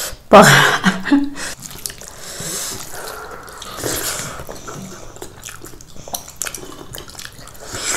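A short voiced exclamation in the first second, then soft, wet eating sounds as rice and egg curry are mixed and eaten by hand.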